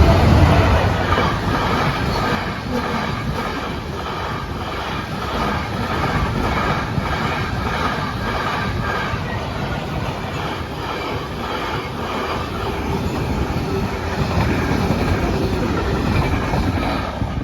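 Freight train passing through a level crossing: a loud, steady rush of wagons and wheels on the rails, heaviest with low rumble as it first arrives and swelling again a few seconds before the end.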